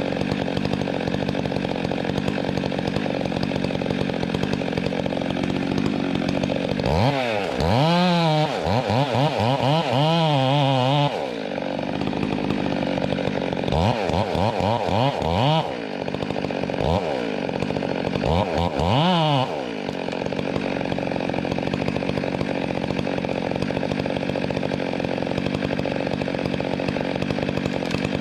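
Two-stroke chainsaw running steadily, throttled up in three spells of rising and falling engine pitch between about 7 and 20 seconds in, as it cuts into an oak log.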